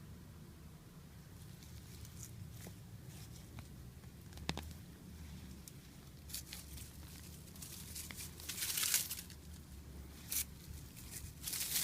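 Rustling and crackling with a few sharp clicks, which come more often in the second half, over a low steady hum.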